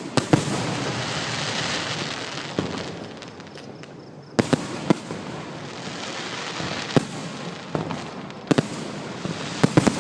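Fireworks display: sharp bangs of bursting shells with a dense crackling hiss between them. A fresh volley of bangs comes about four seconds in, and a quick cluster of bangs near the end.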